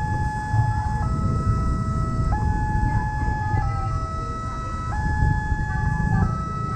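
Railway level-crossing warning siren sounding its alternating two-tone signal, switching between a higher and a lower tone about every second and a quarter, over a steady low rumble. The barrier is down: the signal warns of an approaching train.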